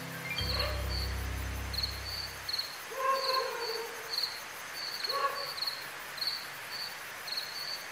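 Crickets chirping, short high chirps about two a second, over a low hum that stops about two and a half seconds in.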